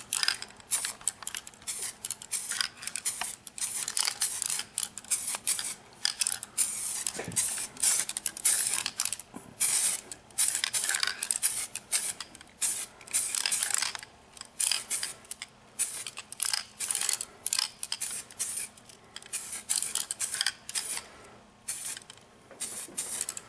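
DuraCoat aerosol spray can hissing in many short stop-start bursts, about one or two a second: quick overlapping spray strokes laying gun finish onto a rifle receiver.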